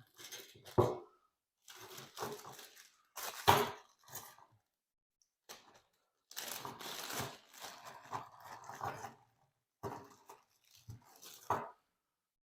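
Rustling, scraping and clattering of parts and packaging being handled, in short irregular bursts, with a sharp knock about three and a half seconds in.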